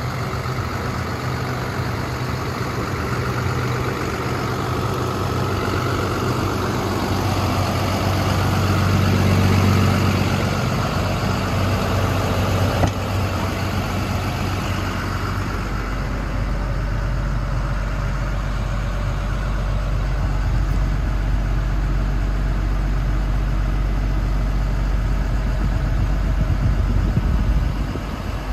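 Cummins ISB straight-six diesel of an International 4300 dump truck idling steadily. Its sound swells around eight to ten seconds in, and from about sixteen seconds the note turns deeper and heavier.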